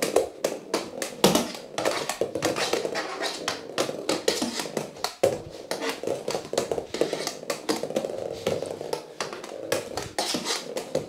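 Floorball stick blade clicking against a hollow plastic floorball and tapping the wooden floor in quick, irregular strokes as the ball is stickhandled back and forth.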